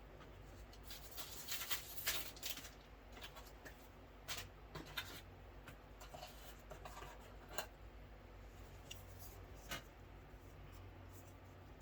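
Packaging being handled and opened by hand: a patch of rustling and crinkling in the first few seconds, then scattered short rustles, taps and clicks.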